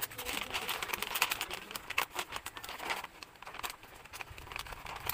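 Gift wrap crinkling and rustling as it is folded by hand around a small box, most busily in the first three seconds and more sparsely after.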